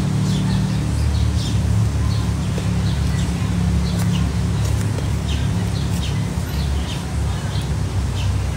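Small birds chirping, many short high chirps scattered throughout, over a steady low rumble.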